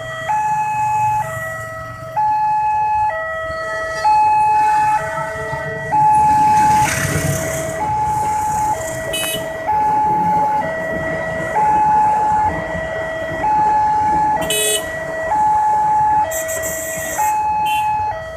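Railway level-crossing alarm sounding its electronic two-tone warning, switching between a higher and a lower tone about once a second. A passenger train passes, adding a wash of rolling noise for a couple of seconds and a few sharp clicks of wheels on rail joints.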